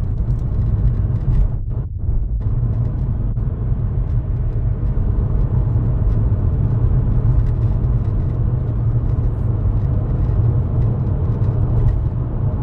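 Inside the cabin of a 2020 Hyundai Elantra on the move: a steady low rumble of road and engine noise. The engine is pulling smoothly with no stumble, the car being road-tested after a cylinder 4 misfire.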